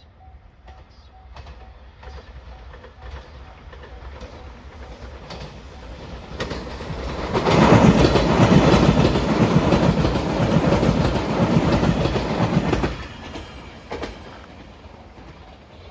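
A train passes a level crossing. Its rumble builds over several seconds, turns into a loud clatter of wheels over the rails for about five seconds, then drops off quickly. A faint, evenly repeating level-crossing warning bell is heard at the start.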